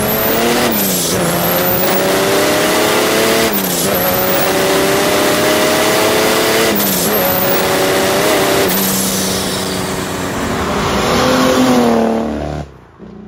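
Big-turbo Mercedes OM606 inline-six diesel in a BMW E28 accelerating hard through the gears. The engine note climbs, then drops at each of several quick upshifts, eases off near the end and cuts off.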